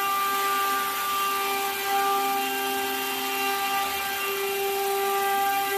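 A 1325 large-format laser marking machine running as it engraves a pattern: a steady whine of several held tones over an even hiss, with small swells in level as the head works.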